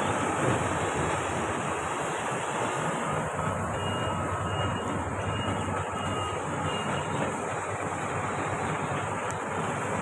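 Marksan K-BOS MS-1200 combine harvester running steadily as it cuts wheat, its engine and threshing machinery a continuous dense drone. A faint run of short, evenly spaced beeps sounds through the middle.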